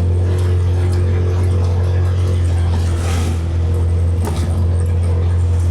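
Vehicle engine and road noise heard from on board while driving: a steady low drone with no change in speed, and a brief hiss about three seconds in.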